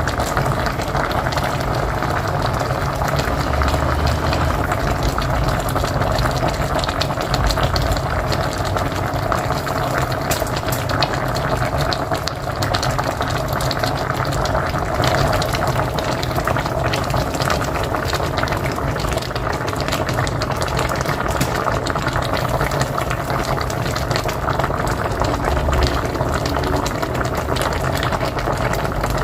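Pot of mocotó (cow's feet) boiling hard on a wood-fired stove: steady, dense bubbling and popping with a low rumble underneath.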